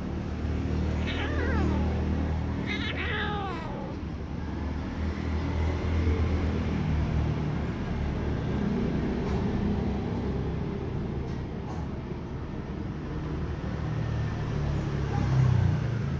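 Kitten meowing twice, high calls that fall in pitch: a short one about a second in and a longer one near three seconds, over a steady low background hum.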